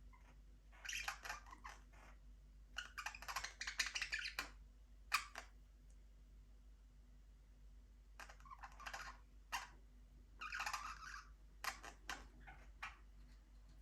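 Budgerigars chirping and chattering in short, scratchy bursts with pauses between them.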